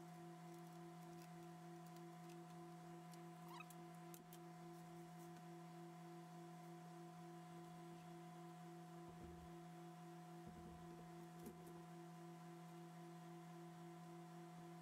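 Near silence: a faint steady hum of a few pitches, with a couple of faint soft bumps about two-thirds of the way through.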